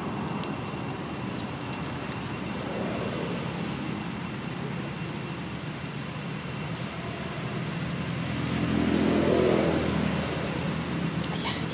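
Steady hum of road traffic, with one motor vehicle passing and swelling louder about eight to ten seconds in.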